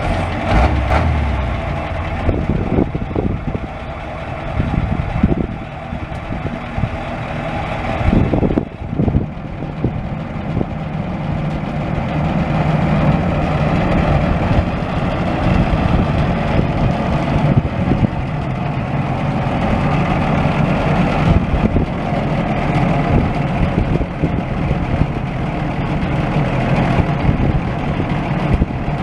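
1978 Ford 7000 truck's engine running steadily, with a few sharp knocks about eight to nine seconds in. In the second half the engine drives the hydraulics that raise the truck's scissor-lift bed.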